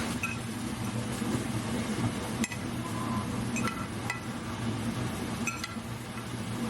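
Light clinks of dishes and utensils, a handful of short ringing taps spread through, over a steady low hum of a running kitchen appliance.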